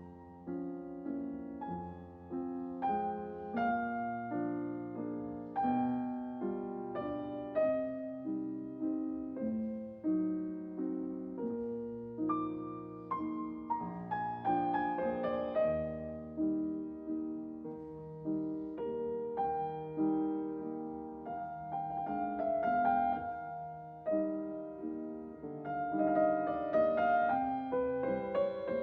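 Gentle background piano music, with single notes and chords struck and fading away, growing a little louder near the end.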